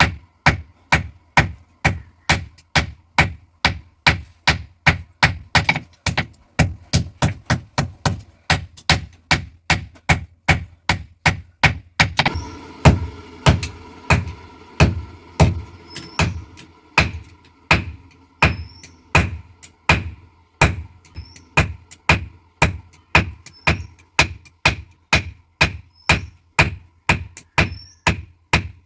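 Blacksmith's hammer striking leaf-spring steel on an anvil, forging knife stock in steady blows about two a second, each with a short metallic ring.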